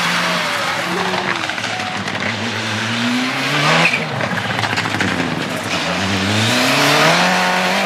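Mitsubishi Lancer Evolution rally cars at speed, the engine note climbing hard twice under acceleration, with a brief break about four seconds in.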